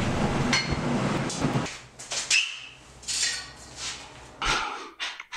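Hand hammer blows flattening a hot lawnmower blade on a steel anvil, about two a second, over a steady hum. Then a few scattered metallic clanks, one ringing briefly.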